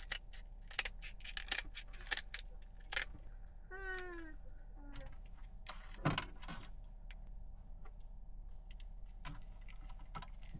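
Irregular small clicks and taps from seasoning containers being handled, mostly in the first three seconds, with a short high vocal sound falling in pitch about four seconds in and a single knock about six seconds in.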